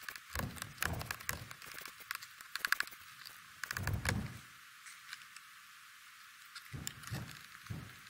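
Light, irregular clicks and clinks of hand tools and loose metal bolts as a car's floor shifter is unbolted, with a quick run of rapid clicks about two and a half seconds in, a quiet stretch, then a few more knocks near the end.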